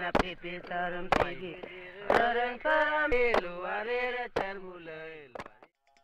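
Background music of male voices chanting, with sharp percussion strokes and a low steady drone under the first half. It fades out about five and a half seconds in.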